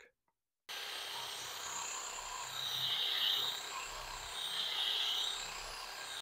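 A cordless drill drives a Meguiar's dual-action polisher head, buffing polish into a golf cart windshield after compounding. It makes a steady whirring hiss that swells twice as the pad is pressed and worked across the surface, then cuts off suddenly.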